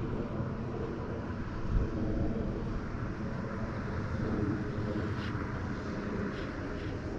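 Steady rumbling roar of water pouring over a dam spillway, mixed with wind buffeting the head-cam microphone. A couple of faint short ticks come about five and six seconds in.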